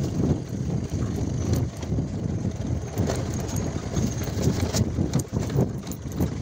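Motorcycle ridden over a rough, rocky dirt track: an uneven low rumble of engine and wind buffeting on the microphone, broken by several sharp knocks and rattles as the bike jolts over the ground.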